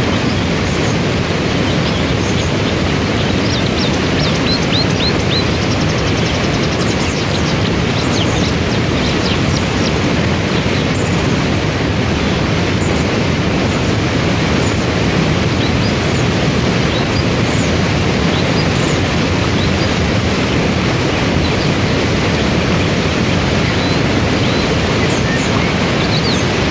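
Waterfall and river rapids rushing, a loud, steady wash of water. Small birds chirp faintly now and then over it, with a quick run of chirps about four seconds in.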